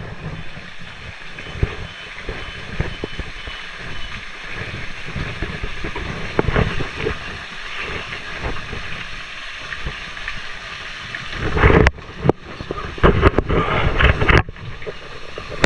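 Steady rush of water falling at a waterfall, a constant hiss. In the last few seconds several loud sharp knocks and brief abrupt breaks cut across it.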